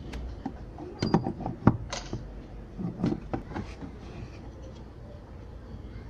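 Scattered clicks and knocks of a washing machine part being handled and screwed back into place, with the sharpest knocks about a second in and again around three seconds.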